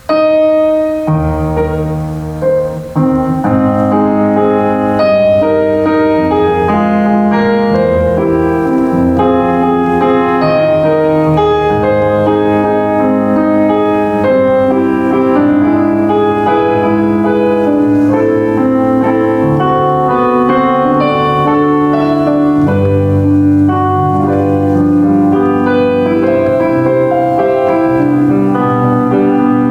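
Solo piano playing a worship song in full chords with sustained bass notes; the playing starts suddenly at the very beginning.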